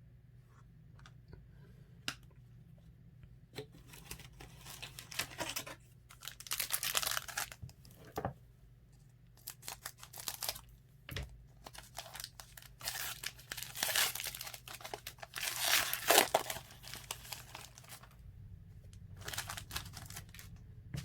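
A trading-card pack wrapper being torn open and crinkled in a series of irregular rustling bursts, loudest about two thirds of the way through.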